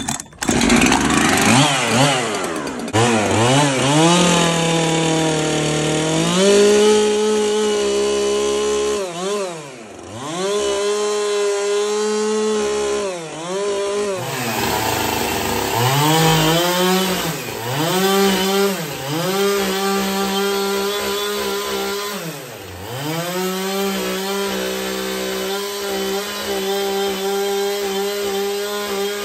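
Gasoline chainsaw running and cutting into a log, revved again and again: the engine climbs to a steady high speed and drops back toward idle many times over.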